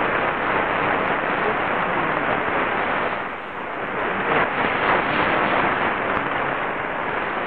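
Qodosen SR-286 receiving medium-wave AM at 558 kHz: steady static and hiss from its speaker, with a weak distant station's voice faintly under the noise. The noise dips briefly about three and a half seconds in.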